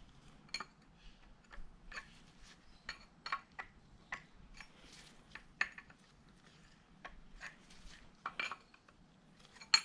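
Irregular light metallic clinks and taps of hand tools against engine parts, about two a second, the loudest one near the end.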